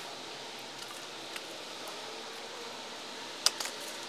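Hand tools clicking against the metal tie rod and boot clamp of a steering rack: one sharp metallic click about three and a half seconds in, with a few lighter clicks, over a steady hiss.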